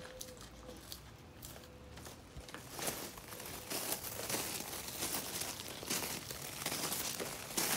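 German shepherd chewing on a hard chew treat: a dense run of cracking, crunching bites that gets louder from about three seconds in.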